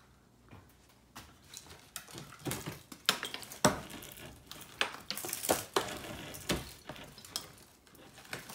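A wooden wall stud being wrenched and worked loose from the framing by hand: a string of sharp wooden knocks and clacks with short scraping rubs, loudest about halfway through.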